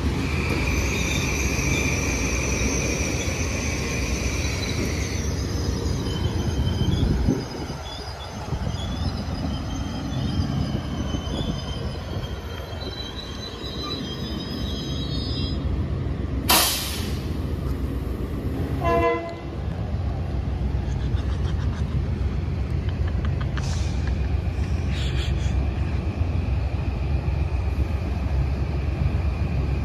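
Train running through a station with a steady low rumble, its wheels squealing in high thin tones through the first half. A sharp crack comes about two-thirds of the way through, followed by a brief toot.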